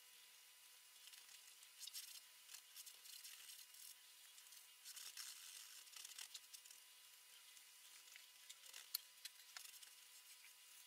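Faint scratchy rustle of a small paintbrush stroking oil paint onto stretched canvas, in short strokes, with a sharp tick near the end.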